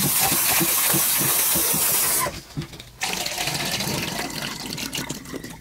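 Tap water running into an aluminium pan of goat liver pieces as hands rub them, rinsing off turmeric. The flow stops about two seconds in, then the yellow water is poured off the pan, splashing into a stainless steel sink.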